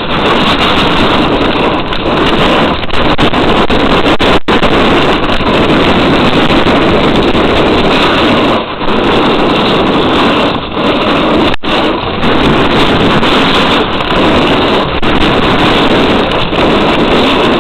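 Loud, steady rush of wind over the camera's microphone mixed with a snowboard scraping and sliding over packed snow during a fast downhill run.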